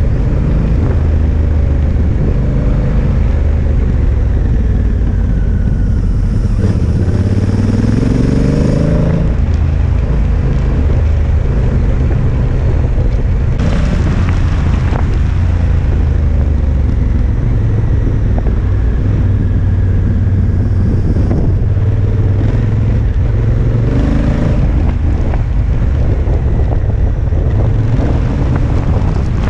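Honda Africa Twin motorcycle engine running steadily under heavy wind noise on the microphone. The revs rise about a fifth of the way in and again a little past three quarters of the way through.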